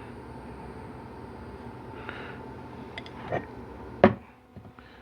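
Steady background hum with a few light clicks and one sharper knock about four seconds in, from transmission pump parts being handled on the workbench.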